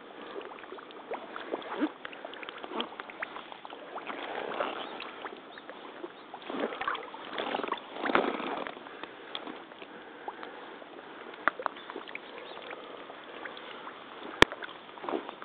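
Crotch-high rubber waders wading through shallow muddy pond water, sloshing and splashing unevenly with each step every second or two. A single sharp click near the end.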